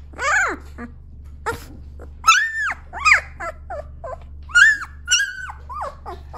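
A 13-day-old puppy crying: a string of short, high-pitched whines, each rising and then falling in pitch.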